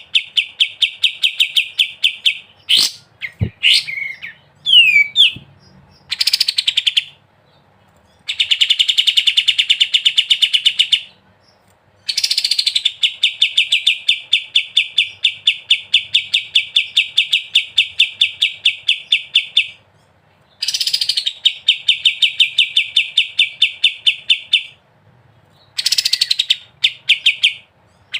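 Kapas tembak songbird singing its 'ngebren' song: long bursts of rapid, evenly repeated rattling notes, each bout opening with a quick sweep, in about six bouts broken by short pauses. Between the first bouts come a few whistled gliding notes and a couple of sharp clicks.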